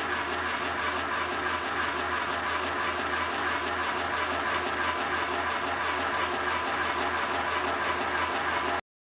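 Universal milling machine running with a homebuilt gear-hobbing attachment: a steady mechanical whir with a low hum and constant high-pitched whines, cutting off abruptly near the end.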